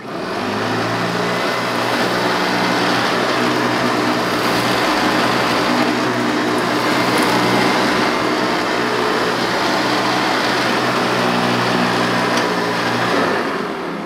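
Hoover Elite upright vacuum cleaner switched on and pushed back and forth over carpet: a loud, steady motor hum with the machine's vibration under the rush of air. It is switched off near the end and winds down.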